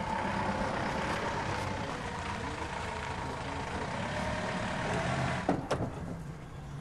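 A van's engine running steadily, with a couple of sharp knocks about five and a half seconds in.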